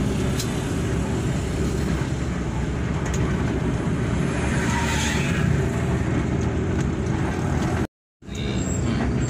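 Steady cabin noise inside a moving coach: the Hino RK8 R235's diesel engine drone mixed with road rumble. The sound cuts out completely for a moment about eight seconds in.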